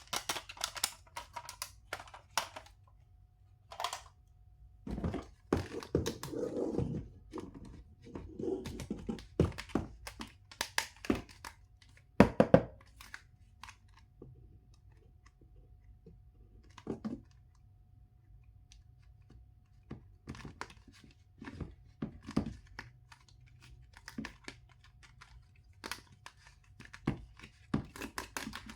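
Toys and packaging being handled: scattered clicks and knocks of plastic, with stretches of rustling and tearing and one louder knock about halfway through.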